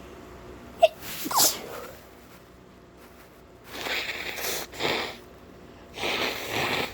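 A person's sharp, stifled sneeze a little under a second in, with a breathy follow-through. It is followed by three longer breathy rushes of air through the nose.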